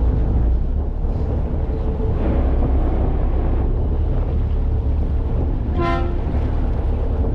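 Party fishing boat's engine running with a steady deep rumble, with wind on the microphone. About six seconds in, the boat's horn gives one short toot, the usual party-boat signal that lines can go down.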